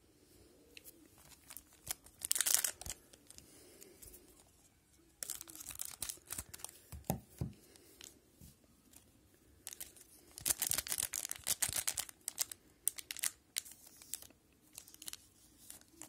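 A trading-card pack wrapper being torn open and crinkled, then cards handled, in several short bursts of tearing and rustling a second or two long.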